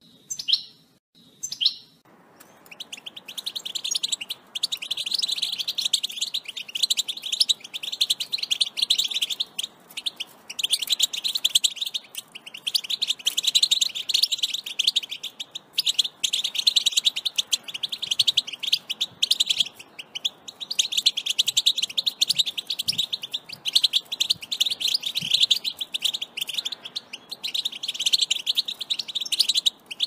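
European goldfinch singing: a long, rapid, twittering song with a few short breaks, starting about two seconds in after a few short calls.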